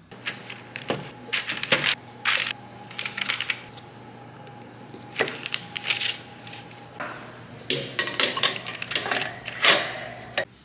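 Electric hand mixer whipping cream in a bowl: a steady motor hum with the metal beaters clattering and scraping against the bowl in irregular bursts. The mixer stops near the end.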